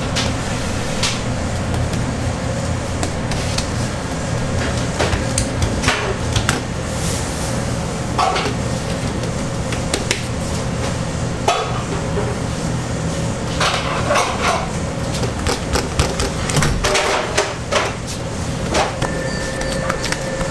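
Irregular knocks and clatter of bakery kitchen work, heard over a steady machine hum.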